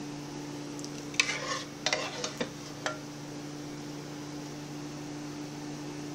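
A spoon scraping and tapping against a pot while scooping enchilada sauce: a handful of short scrapes and knocks in the first three seconds, over a steady low hum.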